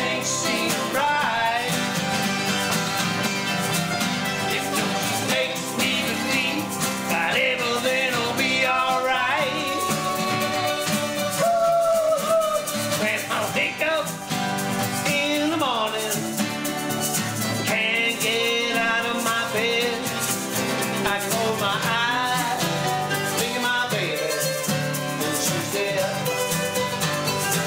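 Folk music played live: acoustic guitars and a mandolin strummed together, with a voice singing over them.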